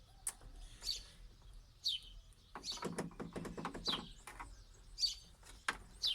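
Small bird chirping outdoors, short high falling chirps about once a second. Light clicks and taps come from a screwdriver working out the screws of a TV's back case.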